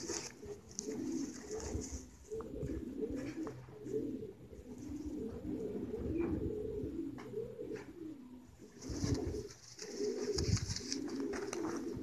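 Racing pigeons cooing steadily, a continuous warbling coo. A couple of low bumps come near the end.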